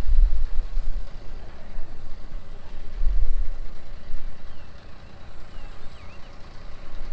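Wind buffeting the microphone: an irregular low rumble that swells and fades in gusts, weaker in the second half.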